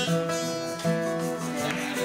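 Steel-string acoustic guitar strumming chords and letting them ring, with a fresh strum just under a second in.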